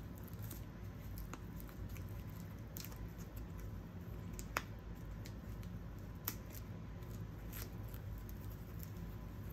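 Faint crinkling and small ticks of thin clear plastic protective wrap being picked at and peeled off a new handbag's handle hardware, with a couple of sharper clicks, one about halfway through.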